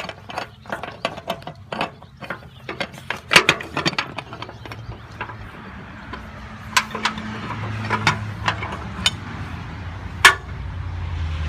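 Rapid mechanical clicking and knocking for the first few seconds, then a few single sharp knocks over a low engine hum that grows louder toward the end.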